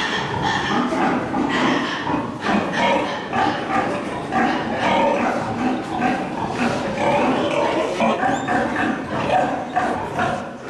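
A shed full of pigs, many grunting and calling at once in a continuous din.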